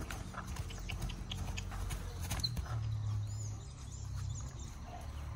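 A ridden horse walking on grass: soft, irregular hoof thuds and small clicks.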